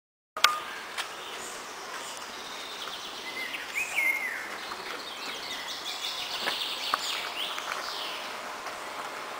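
Birds chirping and singing in many short, quick calls, with a few faint clicks. The sound cuts in with a click about a third of a second in.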